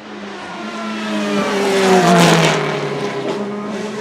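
Naturally aspirated GT1-derived racing car passing at speed. The engine gets louder to a peak about two seconds in, then drops in pitch and fades as it goes by.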